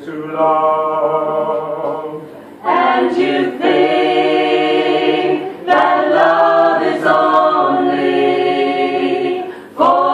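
Mixed-voice a cappella choir singing long held chords, with new phrases coming in about two and a half, five and a half, and ten seconds in.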